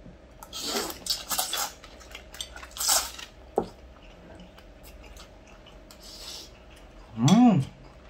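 Metal forks clicking and scraping in glass bowls while instant noodles are slurped and chewed, with a couple of longer hissing slurps in the first few seconds. Near the end comes a short, loud "mmm" whose pitch rises and then falls.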